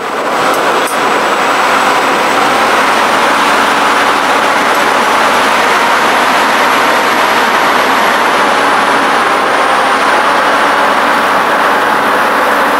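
Turbine-powered unlimited hydroplane running at speed: a loud steady rush with a thin high turbine whine above it that rises slightly partway through and eases again near the end.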